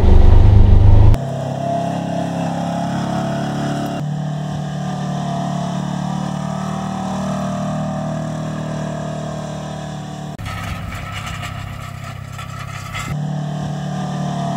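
Polaris Ranger XP1000's twin-cylinder engine running. At first there is a loud low rumble inside the cab. About a second in it changes abruptly to a steadier, quieter engine note heard from outside as the UTV pulls a roller implement, and the sound shifts suddenly a few more times, with a noisier stretch near the end.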